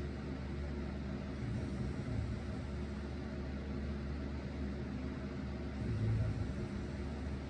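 A fan running with a steady drone while a person snores, two low snores a little over four seconds apart.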